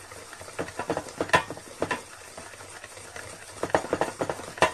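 Wire whisk beating a thick, creamy mixture in a stainless steel bowl, the wires clicking and scraping against the metal in quick, irregular strokes.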